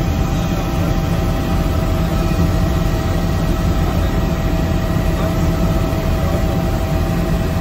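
Helicopter engine and rotor heard from inside the cabin in flight: a loud, steady drone with a constant whine over it.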